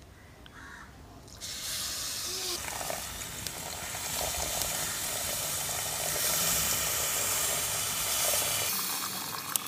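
Tamarind water poured in a steady stream from a steel bowl into a hot clay pot of oil-fried spice masala, sizzling as the liquid hits the hot oil. It starts about a second and a half in and stops shortly before the end.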